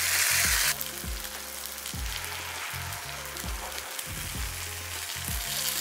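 Paniyaram batter sizzling in the hot oiled cups of a kuzhi paniyaram pan as it is ladled in, loudest in the first moment, then a steady sizzle. Background music plays underneath.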